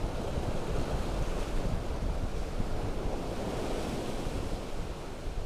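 Sea surf breaking and washing over rocks just below, with wind buffeting the microphone.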